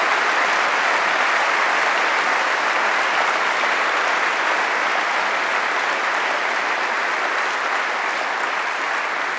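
A large seated audience applauding, a dense, steady clapping that eases off slowly toward the end.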